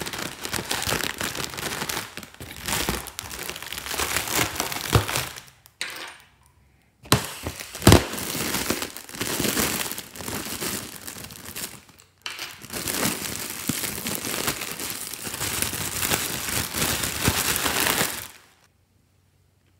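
Plastic packet crinkling and crackling as it is squeezed and handled, with two brief pauses and a couple of sharp clicks about eight seconds in. It stops about eighteen seconds in.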